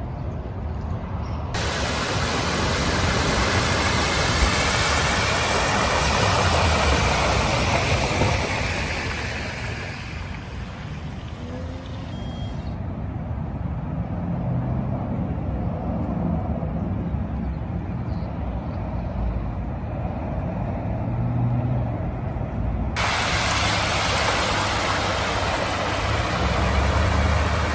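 Vehicles driving through a flooded street: engines running and tyres hissing through standing water, swelling and fading as they pass.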